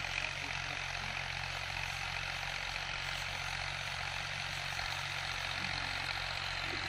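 Al-Ghazi 65 hp tractor's diesel engine running steadily under load as it pulls a disc harrow through dry tilled soil: a low, even drone.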